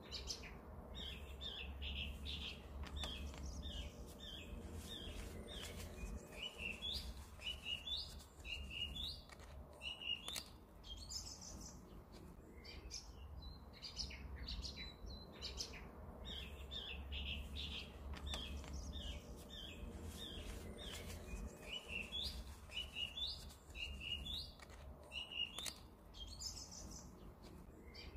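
Small songbirds chirping and twittering continuously, many short high notes one after another, over a low steady rumble.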